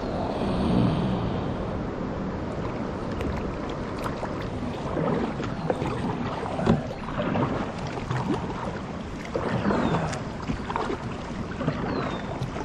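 Water splashing and lapping around a kayak, in irregular bursts, with wind on the microphone.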